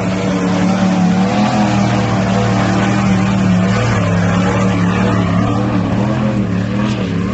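Jeep Grand Cherokee engine working hard under load as the 4x4 drives through deep mud, its tyres spinning and throwing mud. The engine note holds steady at first, then dips and rises repeatedly in the second half as the revs change.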